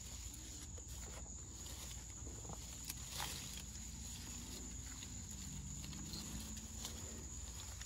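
Grapevine leaves faintly rustling and snapping as hands pick muscadine grapes from them. A steady, high-pitched trill of crickets runs behind it.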